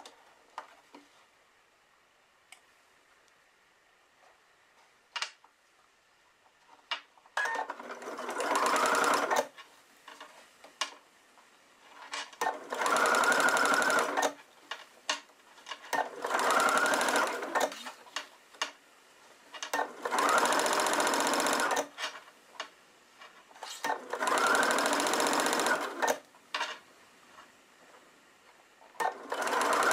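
Electric sewing machine stitching a curved seam in six short runs of about two seconds each, the first starting about seven seconds in. Between runs the machine stops while the fabric is turned, leaving small clicks of handling.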